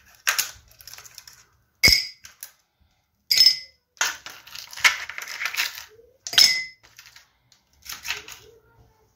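Ice cubes dropped one after another into glass tumblers, each clinking sharply against the glass, with a quicker rattle of cubes about four to six seconds in.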